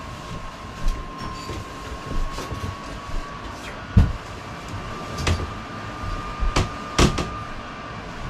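A person climbing onto a bed and settling in: several soft thumps and knocks, the heaviest about halfway through, over a steady faint whine in the room.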